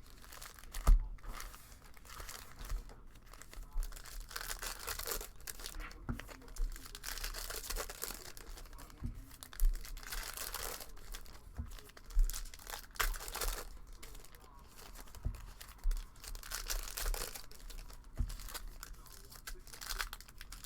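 Foil trading-card pack wrappers being torn open and crinkled in repeated rustling bursts, with several short thumps, the loudest about a second in.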